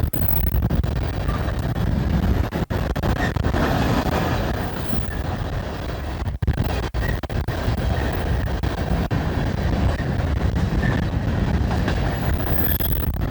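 Coal train rolling past, its cars and wheels rumbling steadily, with strong wind buffeting the microphone. The sound cuts out for an instant twice, once a few seconds in and again about halfway.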